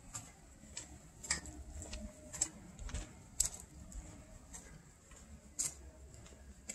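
Faint footsteps on a paved path, light ticking steps at walking pace, about two a second, over a low rumble.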